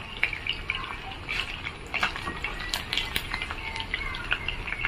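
Chicken pieces shallow-frying in hot coconut oil in a pan, sizzling with many small irregular crackles.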